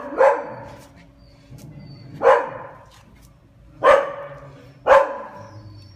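A dog barking: four loud single barks, one to two seconds apart, each echoing briefly off the hard kennel walls.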